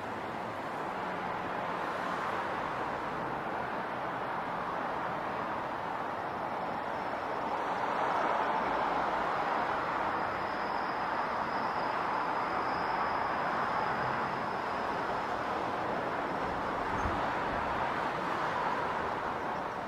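City traffic ambience: a steady wash of road and vehicle noise that swells about eight seconds in, with a faint high steady tone through the middle.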